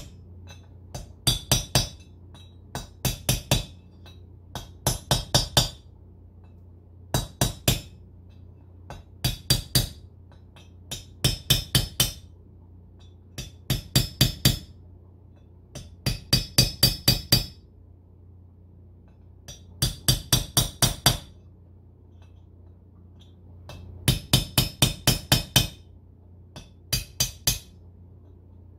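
Small hammer tapping a long bolt used as a drift, driving a steel bearing race into the cast park-brake housing of a ZF transmission. The taps come in quick bursts of two to six with short pauses between, each with a bright metallic ring, as the race is worked in a little at a time, side by side, until it seats.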